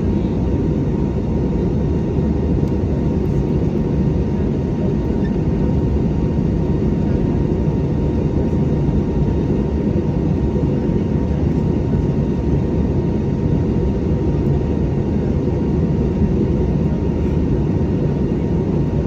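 Airliner's jet engines and airflow, a loud, even rumble with a faint steady whine over it.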